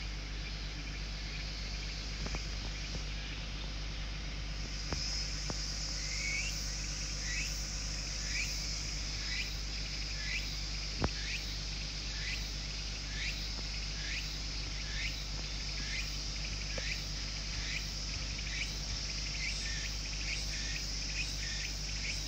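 Insects chirping: a steady high-pitched chorus, joined from about six seconds in by a short falling chirp repeated a little more than once a second. A steady low hum runs underneath.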